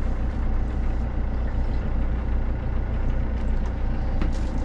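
Steady low mechanical drone, like an engine or motor running at a constant speed, with a few light clicks near the end.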